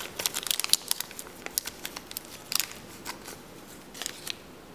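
Small plastic bag crinkling and crackling as it is torn open and handled. The crackles come thickly at first, then in a few short bursts, and stop before the end.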